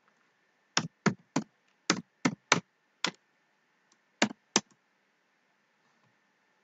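Computer keyboard being typed on: about nine separate key presses over roughly four seconds, the last two after a short pause, typing the end of a MySQL command and pressing Enter.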